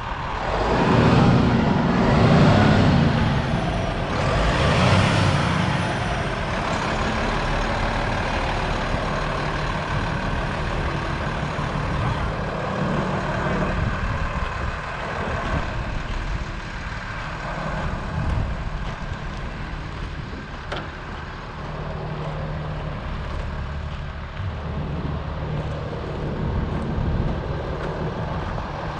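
Freightliner M2 service truck's diesel engine idling steadily, with a louder rushing noise over it in the first few seconds.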